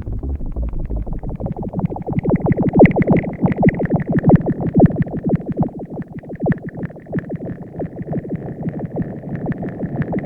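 Access Virus B virtual-analog synthesizer playing a patch of rapid, rhythmically repeated plucked notes. A higher held tone joins about two seconds in.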